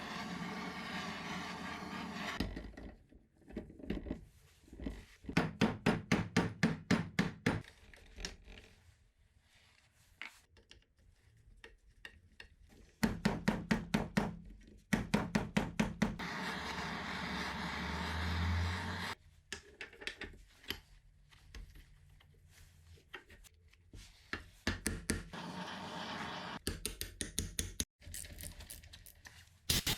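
Workshop tool sounds from reassembling a motorcycle engine: runs of quick, evenly spaced knocks and clicks of metal tools on engine parts, broken up by stretches of hiss and short low hums, with abrupt cuts between them.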